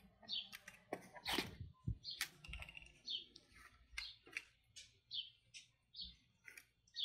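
Nylon fabric panel rustling and plastic poles and connectors clicking as the fort is taken apart by hand: a string of irregular short clicks and swishes.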